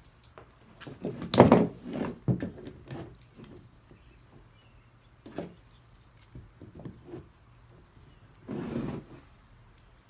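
Metal pipe clamps handled on a work surface: a clatter of knocks about a second in, a single knock around five seconds, and a short sliding scrape near the end.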